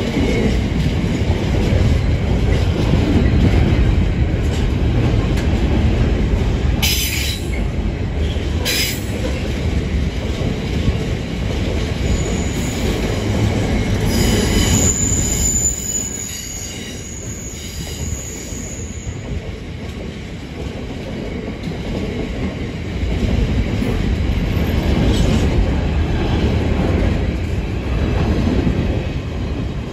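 Container flat wagons of an intermodal freight train rolling past, their wheels giving a continuous rumble on the rails. Two sharp clanks come about seven and nine seconds in, and a thin high wheel squeal runs for several seconds midway.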